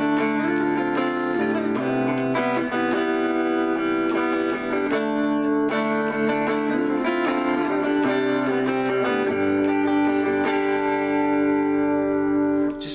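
Electric guitar played through a clean amp tone, unhurried ringing chords and melody notes that change every second or two.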